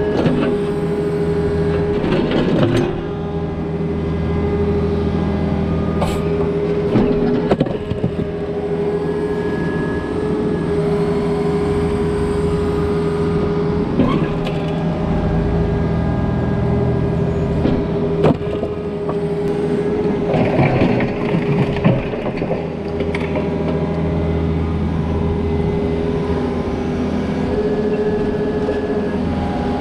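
Takeuchi excavator's diesel engine running steadily close by, with a steady whine over the engine hum, and scattered clanks and knocks as the steel bucket works among broken concrete rubble.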